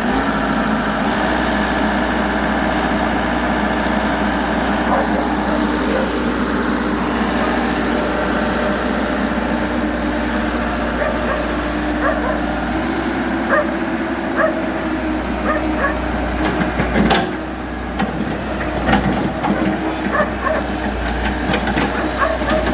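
Komatsu excavator's diesel engine running steadily. In the second half, short sharp sounds come irregularly over the engine.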